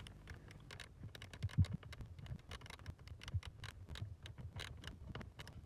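Faint, irregular clicks and light scrapes from hands and tools working screws back into the plastic blower-motor housing.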